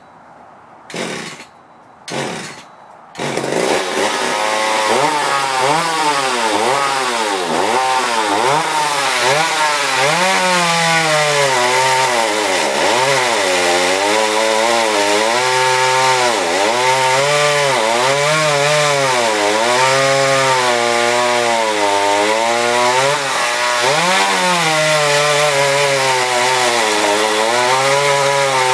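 A McCulloch mini chainsaw's small two-stroke engine. After two brief bursts it catches about three seconds in, then runs, revving up and down repeatedly, every second or two.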